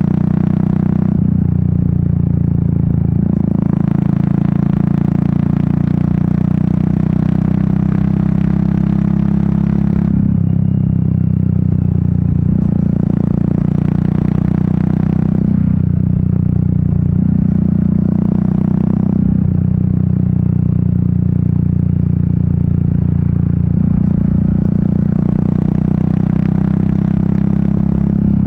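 Royal Enfield Meteor 350's single-cylinder engine running under way, its exhaust note stepping up and down in pitch several times with throttle and gear changes. A rushing wind noise swells and falls away in several stretches over it.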